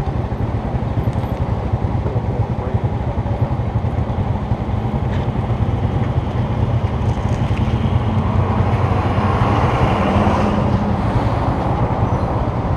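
Small step-through motorbike engine idling close by, a fast low pulsing rumble; the engine noise swells for a few seconds past the middle as a motorbike pulls away.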